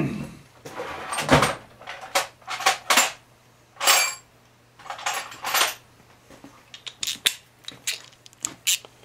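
Loose metal sockets and hand tools clinking and rattling in short, irregular bursts as they are picked through.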